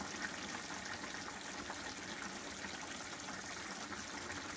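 Pot simmering on the stove: a steady bubbling hiss with faint small pops.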